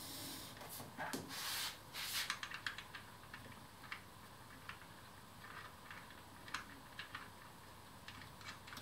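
Hands handling a model live-steam locomotive and its track: faint rubbing and rustling for the first two or three seconds, then scattered small clicks as fingers touch the fittings on top of the boiler.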